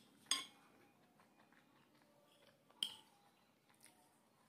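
A metal spoon clinks twice against a ceramic plate while scooping up food. The two sharp clinks come about two and a half seconds apart, each ringing briefly.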